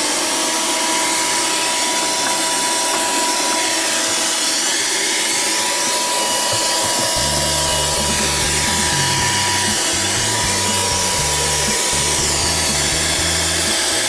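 Handheld 12 V car vacuum cleaner running steadily, a high motor whine over a rush of air. A low bass line of background music comes in about halfway.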